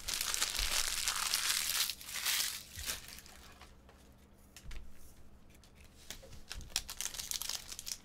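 Foil wrapper of a baseball card pack being torn open and crinkled by hand: a loud rustle for the first two seconds, quieter handling for a few seconds, then sharp crackling crinkles near the end.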